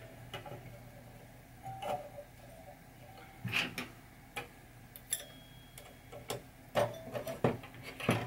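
Pinball chime bars clicking and clinking against the chime box as they are slid through its holes: irregular light taps, with a brief faint metallic ring about five seconds in.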